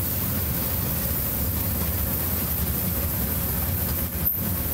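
Steady low rumble of an amusement-park train ride, recorded from on board as it rolls along. The sound cuts out for a moment near the end.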